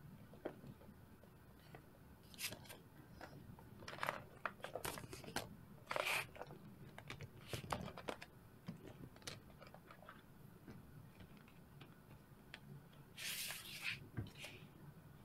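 Silicone pop-it Tetris puzzle pieces handled and set down on a hard plastic grid tray: scattered soft clicks and taps at irregular intervals, with a brief rustling sweep near the end as the pieces are slid off the tray.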